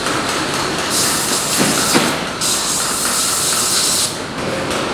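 Steady shoe-factory machinery noise, with a loud hiss that starts about a second in and cuts off about four seconds in.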